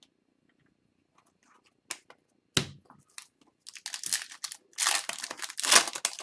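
Foil hockey-card pack wrapper being torn open and crinkled: two sharp snaps, then a second or two later a long crackling rustle.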